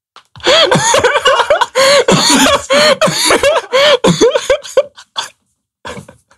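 A young man laughing hard: a rapid string of short 'ha' bursts for several seconds, trailing off into a few faint breaths of laughter near the end.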